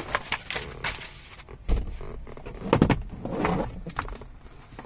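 Handling sounds: a sheet of paper rustling and an aluminium AC suction hose being moved about, with scattered clicks and a low thump a little under two seconds in.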